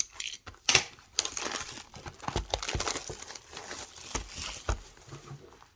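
A sealed retail box of trading cards being opened by hand: its wrapping and cardboard crinkle and tear in a dense run of crackles, with a few dull knocks as the box is handled.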